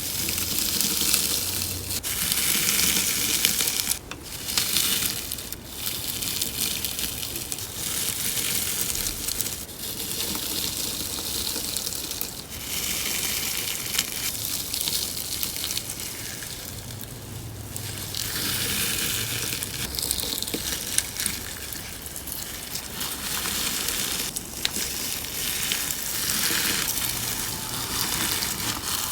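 Crunchy slime packed with beads being squeezed and pressed by hand, giving a dense crackling crunch. It comes in waves of a few seconds with short pauses between presses.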